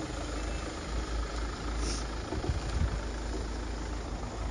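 Off-road vehicle's engine running steadily, with a couple of short low thumps about two and a half seconds in.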